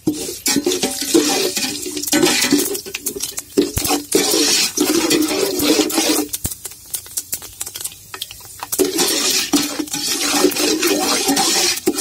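Fenugreek seeds and dried red chillies frying in hot oil in an aluminium pot, sizzling and crackling, while a metal perforated ladle stirs and scrapes against the pot.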